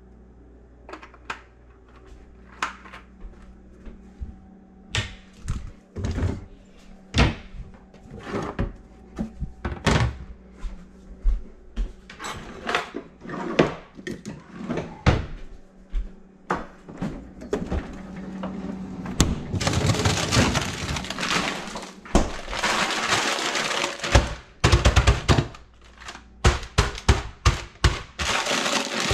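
Kitchen handling noises: a string of knocks and clatters as things are picked up and set down and a utensil drawer is opened. From about two-thirds in, loud crinkling and rustling of a plastic bag of frozen diced potatoes being handled, with more knocks mixed in.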